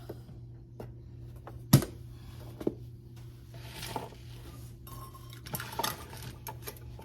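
Kitchen utensils and a measuring cup knocking and clinking against a mixing bowl while dry ingredients for a crisp topping go in: one sharp clack a couple of seconds in, a lighter knock a second later, then soft scraping and rustling.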